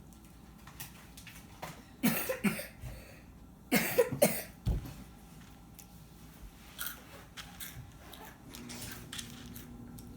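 A child coughing in two short bouts, about two seconds in and again about four seconds in, with faint ticks and rustling in between.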